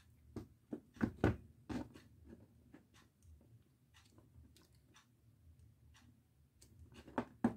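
Light clicks and knocks of small metal parts being handled: a copper-wire soldering tip and the metal barrel of an electric soldering iron as the tip is fitted. A cluster of knocks comes about a second in, then a quieter stretch, and another couple of knocks near the end.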